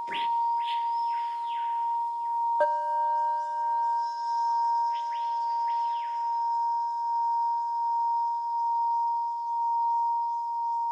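Singing bowl ringing a steady tone with a slow, even wavering pulse. About two and a half seconds in, a second bowl or chime is struck once and rings on with several higher and lower tones, and two soft swishes rise and fall, one near the start and one mid-way.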